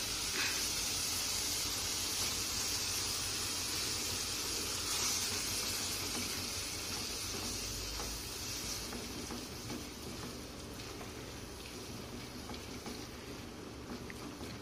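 Onion-tomato masala with fresh cashew paste sizzling in a frying pan as it is stirred with a spatula: a steady hiss that slowly fades.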